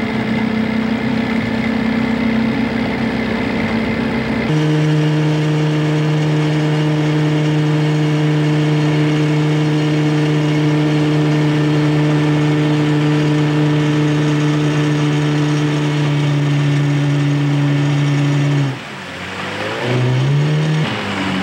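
Outboard motor of a small aluminium boat running steadily at cruising speed, its note changing abruptly about four seconds in. Near the end it is throttled back, and the pitch drops and wavers as the boat slows.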